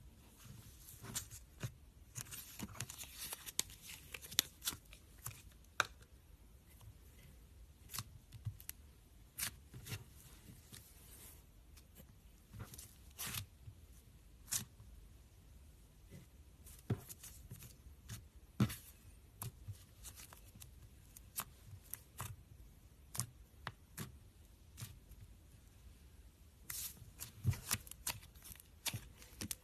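Slime being handled, making irregular pops and clicks, with quicker clusters of them about two seconds in and again near the end.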